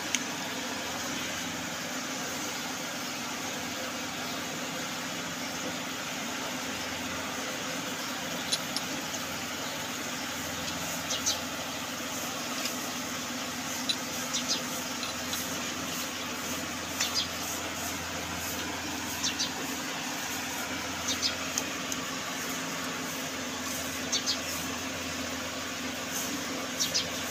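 Hand milking a cow: jets of milk squirting from the teat into a steel bucket of frothy milk, a steady hiss. Light sharp clicks come now and then from about a third of the way through.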